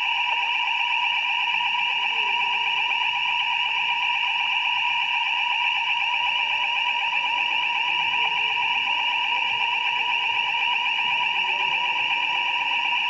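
Fire alarm sounder going off continuously: a loud, steady, unbroken high-pitched tone that never pauses.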